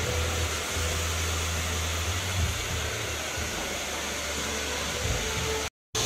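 Handheld hair dryer blowing steadily as a stylist dries long wet hair. It cuts out briefly near the end.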